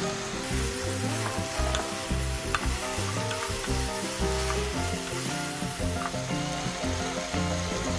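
Chicken thigh pieces, onion, carrot and green onion sizzling in a nonstick frying pan as they are stir-fried, with a few sharp clicks and scrapes from the spatula.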